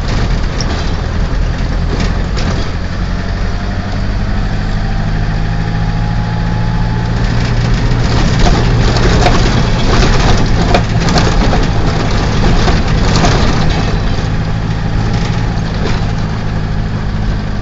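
Vehicle engine running steadily under road noise, with scattered knocks and rattles, louder through the middle of the stretch.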